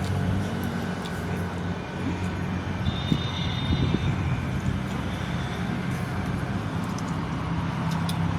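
Steady low mechanical hum over constant background noise, with a few faint short clicks.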